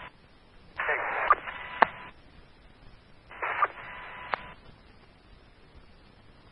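Two brief, unintelligible fire department two-way radio transmissions over a scanner feed. Each is a short burst of narrow, tinny voice that ends with a click, with faint static hiss between them.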